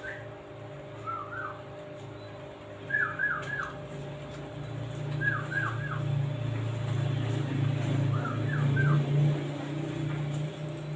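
Lovebird chirping in five short groups of two or three quick notes, over a steady low hum that swells in the second half.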